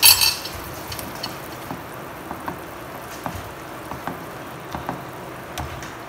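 Tomatoes and mushrooms sizzling in sauce in a nonstick frying pan as they are stirred with a spatula, with light scrapes and taps against the pan. A sharp clatter right at the start is the loudest sound.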